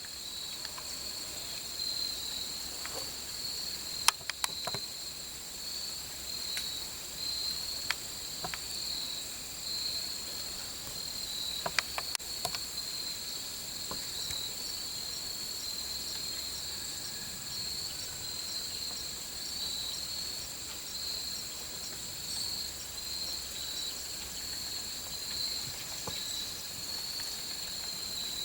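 Steady high-pitched insect trilling in the woods, pulsing gently, with a few sharp clicks, the loudest about four and twelve seconds in.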